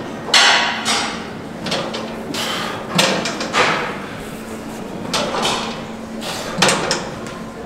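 Cable lat pulldown machine being worked through repetitions: a series of short, hissy swishes about a second apart, each starting sharply, over a faint steady hum.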